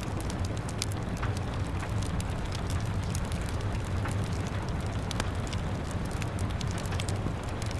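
Wood fire crackling with frequent irregular sharp pops, over a steady rumbling rain.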